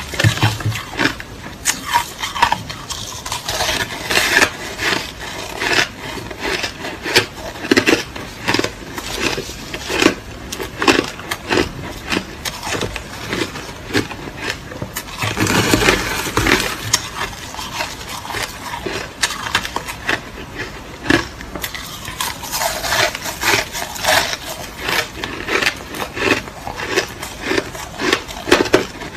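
Close-up crunching of crushed ice being chewed, a continuous run of irregular crisp crackles and crunches, louder for a moment around the middle.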